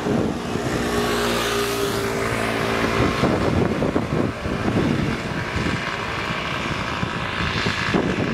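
Road traffic passing close: a motor scooter's engine hum and tyre rush as it goes by in the first few seconds, with cars running on the road and another vehicle swelling up near the end.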